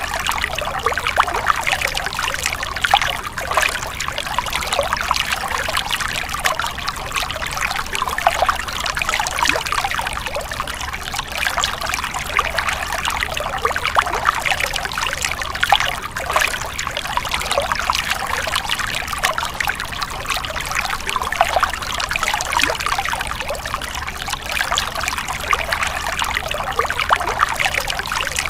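A stream running and splashing, a steady stream of many small quick splashes and trickles with no break.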